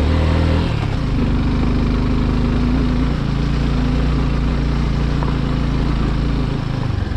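Suzuki Gixxer 250 motorcycle's single-cylinder engine running steadily at low revs on a rough, broken track. The engine note shifts about a second in and again around three seconds in.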